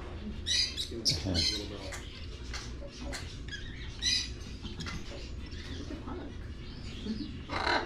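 Caged birds chirping and squawking: a string of short, sharp, high calls, loudest about half a second in, around a second in and again at about four seconds, over a steady low hum.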